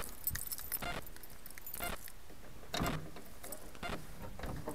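Footsteps crunching on dry, gritty ground, about one step a second.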